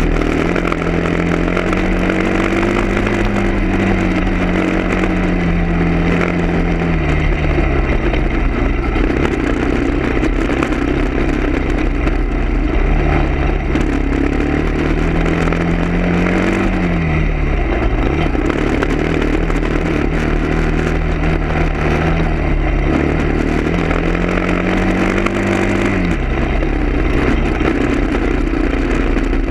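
Vehicle engine running under load, its pitch rising and falling several times as it accelerates and eases off, with sudden drops about two-thirds of the way in and near the end. A steady rattle and road noise run underneath.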